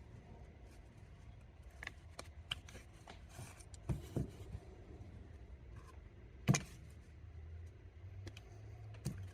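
Small screwdriver prying the seal cover off a sealed ball bearing: scattered light clicks and scrapes, the sharpest about six and a half seconds in, over a low steady hum.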